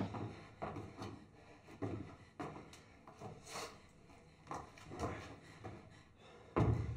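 A series of soft, irregular knocks and scuffs, spaced about half a second to a second apart, with a louder, busier run of knocking starting near the end.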